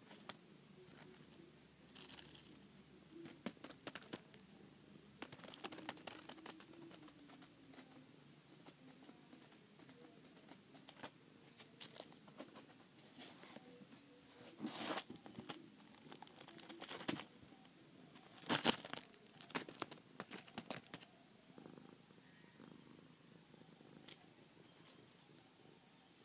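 Calico kitten scuffling and pouncing on carpet during play: irregular soft rustles and scratchy scrapes, coming in clusters with the loudest about two-thirds of the way through.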